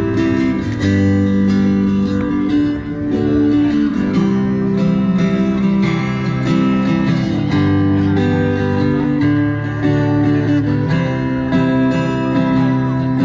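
Acoustic guitar strumming chords, the chords changing every second or two.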